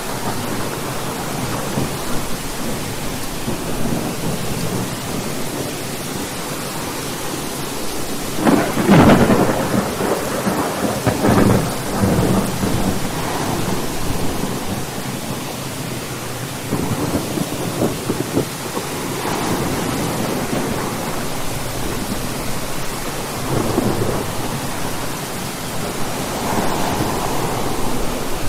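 Steady rain with thunder rolling through it. The loudest rumbles come in two close surges about a third of the way in, with softer rolls of thunder later on.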